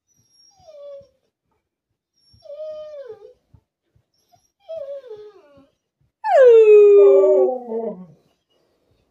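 Alaskan Malamute whining: three short cries that slide down in pitch, each louder than the one before, then a loud howl about six seconds in that starts high, drops and is held with a wavering tone for about two seconds.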